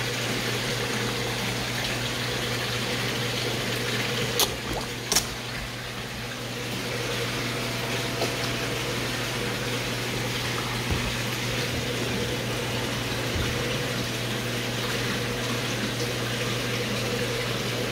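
Steady rush of moving water with a constant low hum from an indoor pond's water circulation. Two brief sharp clicks or splashes come a little over four and five seconds in.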